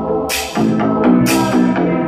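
Music with a drum beat and bass line played as a test through Pioneer subwoofers in carpeted boxes, driven by a Pioneer amplifier; cymbal-like hits land about once a second.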